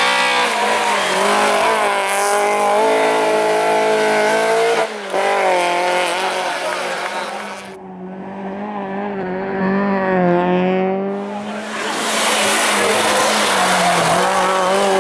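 Rally car engines at full throttle, revving up and dropping in pitch through gear changes. The sound changes abruptly a few times, with a duller, quieter stretch in the middle.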